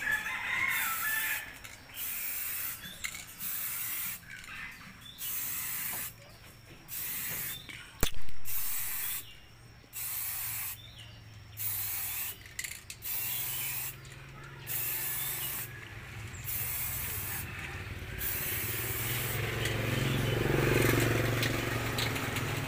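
Aerosol spray-paint can hissing in about a dozen short bursts, each roughly a second long, as black paint goes onto a steel frame and corrugated metal sheet. A single sharp knock about eight seconds in is the loudest moment, and a low rumble builds near the end.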